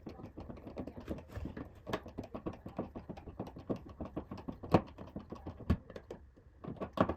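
A screw being driven by hand with a screwdriver into a smoke detector's ceiling mounting bracket: a run of small irregular clicks and creaks, with a few louder knocks.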